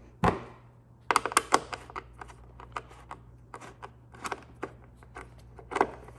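Irregular clicks, taps and light rattles of a hand tool and small parts being handled while tail-light trim is worked loose. A sharper knock comes about a quarter second in.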